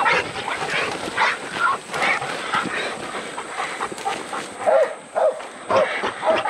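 Hog dogs baying over and over, short barks coming every second or so, at a boar hog held at bay.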